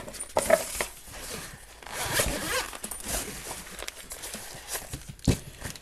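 Zipper of a fabric soft carrying case being pulled open in rasping strokes, with handling rustle. A single sharp knock comes near the end.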